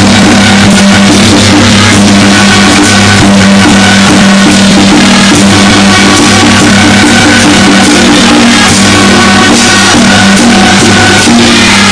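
Loud music with drumming over steady held tones that go on without a break.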